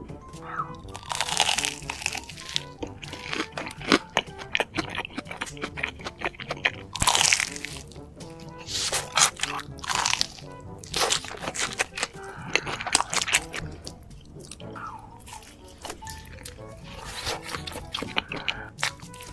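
Close-miked eating: loud crunching bites and chewing of crunchy food, repeated many times, over soft background music.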